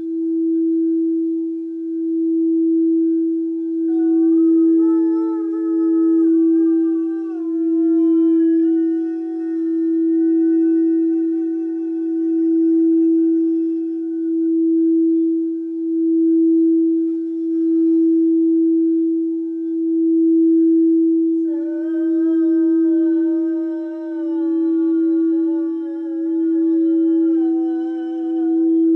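Frosted quartz crystal singing bowl rimmed with a wand, ringing one steady tone that swells and dips about every two seconds. A woman's wordless voice toning joins it twice, from about four seconds in and again past twenty seconds, stepping slowly from note to note over the bowl's tone.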